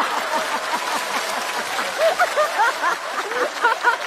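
Studio audience laughing and applauding in reaction to a punchline.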